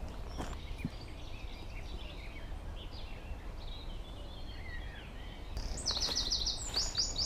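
Woodland birds chirping and singing over a low steady rumble, with one bird breaking into a loud run of quick repeated high notes near the end.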